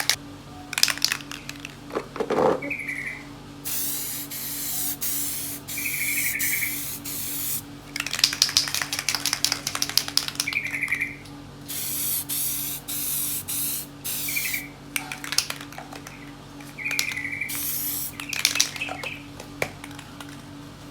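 Aerosol spray can of clear coat hissing in several bursts of one to four seconds, with short bird chirps in the pauses between them.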